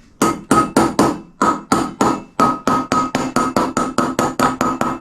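Steady hammer blows, about four a second, tapping a wheel bearing into a motorcycle wheel hub by its outer race, each strike with a short metallic ring.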